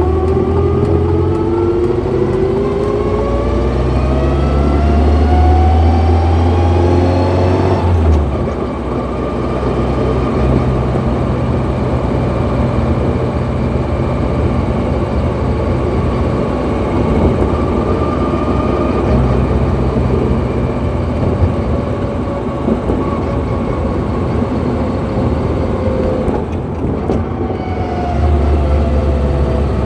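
Car driving with a whining gearbox, heard from inside the cabin. A high whine climbs in pitch as the car gathers speed for about the first eight seconds, breaks off suddenly, holds steady through the middle and falls away near the end, over the low drone of the engine.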